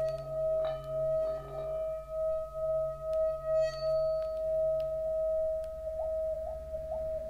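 Sound-bath metal instruments: a long, steady ringing metal tone that swells and fades in a slow wobble over a low hum, with a few light, high chime strikes. From about six seconds in, a soft rising chirp repeats about twice a second.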